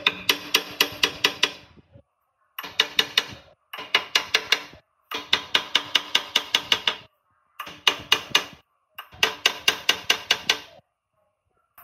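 Hammer striking the rusty cast-iron crankcase of an old air compressor around its shaft end and end cover. The blows come in quick runs of about six a second, with a ringing metallic clang, and short pauses between six runs.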